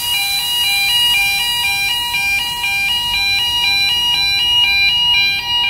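Fire suppression system's electronic hooter sounding a two-tone alarm, switching between a lower and a higher pitch several times a second to warn that the HFC227ea gas has been released. Under it, the hiss of the gas discharge dies away about five seconds in.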